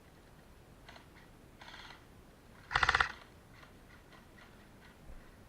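Airsoft guns firing on full auto in short bursts of rapid, evenly spaced cracks. There is a faint burst about a second in, another soon after, and a loud, sharp burst about three seconds in.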